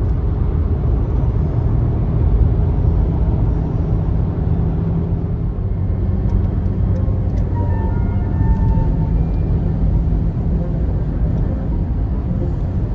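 Steady road and engine noise inside a car's cabin while cruising on a motorway: a low, even rumble of tyres and wind.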